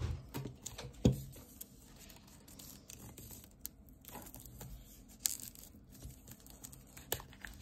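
Fingernails picking and scratching at the clear plastic shrink-wrap on a hardcover sketchbook's edge: scattered small clicks, light crinkles and scratches, with two sharper clicks near the start and about a second in.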